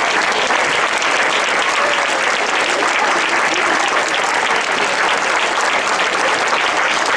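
Audience applauding: many hands clapping in a steady, dense patter, with a few faint voices calling out about two seconds in.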